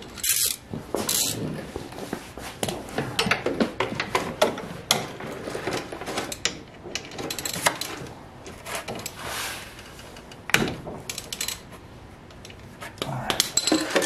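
Irregular metal clicks, clinks and scrapes of a socket and ratchet working the 17 mm oil drain plug under a 125cc mini jeep's engine, loosening it to drain the oil.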